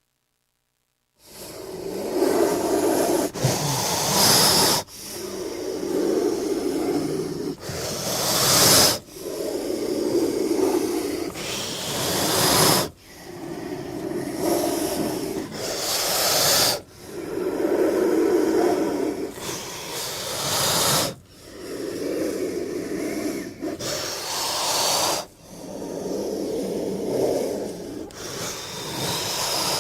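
King cobra's low, growling hiss, starting about a second in and repeating about every four seconds, each long exhalation ending in a louder, sharper hiss.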